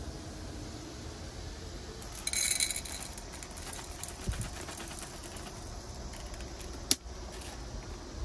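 Dry dog kibble poured from a plastic container into a ceramic bowl: a short rattle about two seconds in, followed by a dull thump and one sharp click later on, over a steady low hum.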